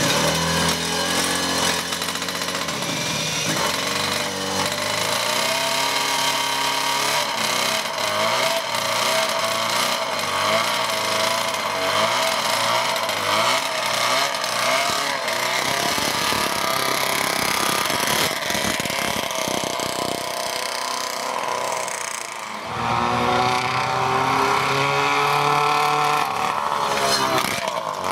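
Fruin 200's four-cylinder 200 cc two-stroke racing engine starts up on a rear-wheel roller and is blipped on the throttle, running on carburation just found too weak low down. About 23 s in, the bike pulls away under load and the revs rise.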